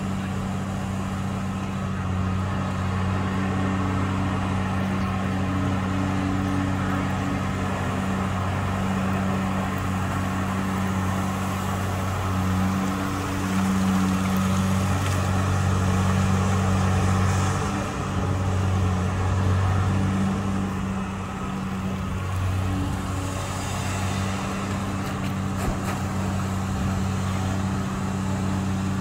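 Diesel engine of a long-reach excavator running under working load while it dredges, a steady drone whose pitch and loudness shift a little as the boom digs and swings.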